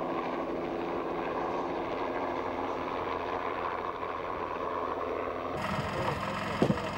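Helicopter flying over bush at a distance: a steady engine-and-rotor noise. After a sudden change near the end comes one brief, sharp knock.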